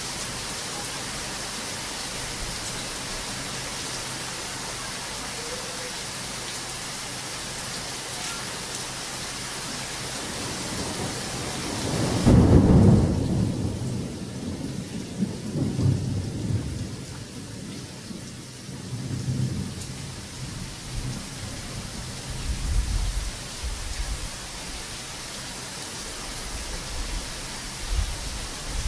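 Heavy rain falling in a steady hiss, then about twelve seconds in a loud thunderclap followed by rolling thunder rumbles that come and go. After the clap the rain hiss is softer.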